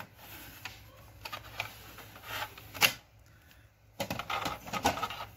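Clicks and light knocks of the plastic front tray and access door of an HP DeskJet 2131 printer being pulled open by hand, with one sharper knock about three seconds in and a brief lull before more clicks.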